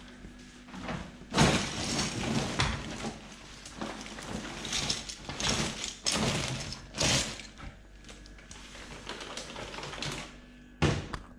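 Bursts of rustling and scraping from things being handled, followed by a sharp knock a little before the end.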